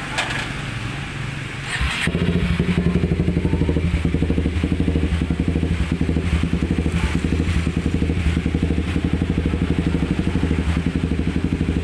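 Kawasaki 250SL single-cylinder engine, breathing through an aftermarket F2racing CLS 20 cm stainless slip-on muffler, firing up about two seconds in and then idling with an even, fast pulse.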